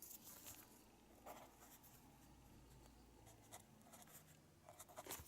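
Faint scratching of a pen writing on a paper form, in short irregular strokes.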